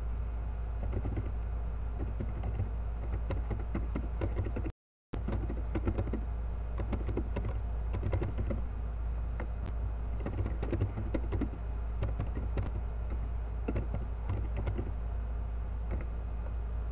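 Computer keyboard typing: quick, irregular key clicks in runs, over a steady low hum. The sound cuts out completely for a moment about five seconds in.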